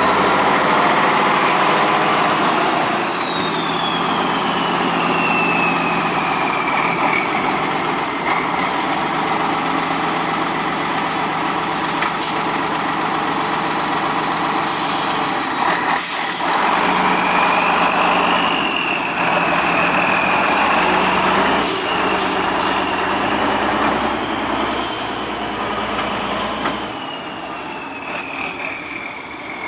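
Tatra 815 8x8 trial truck's diesel engine working hard, its revs swelling and easing off. A high whine rises and falls in pitch with the engine: it is strong near the start, fades, and comes back from a little past halfway.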